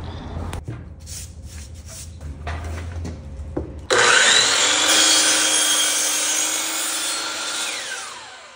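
An electric saw cutting flooring: it starts suddenly about four seconds in, whines up to speed, runs steadily through the cut, then winds down near the end. Before it there are a few quieter knocks over a low hum.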